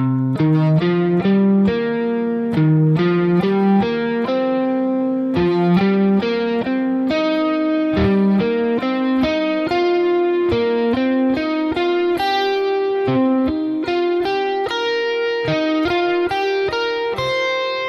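Electric guitar playing a C minor pentatonic line slowly, one note at a time, in repeating groups of five notes. A last note is held and rings near the end.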